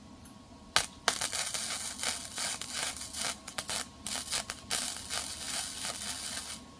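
Electric welding arc crackling on the broken metal handle of a lawnmower. After two short strikes about a second in, it runs in stop-start stretches and cuts off shortly before the end.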